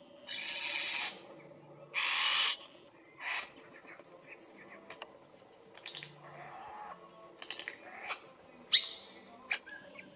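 Superb lyrebird's courtship display song, a run of varied mimicked calls: two harsh rasping bursts in the first few seconds, then assorted short notes and whistles, with a sharp rising whistle near the end as the loudest sound.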